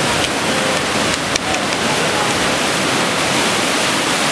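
White water rushing through an artificial slalom course's rapids: a loud, steady rush.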